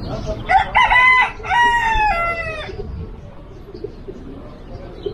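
A rooster crowing once, about half a second in: a two-part call lasting about two seconds, the second part falling in pitch at the end.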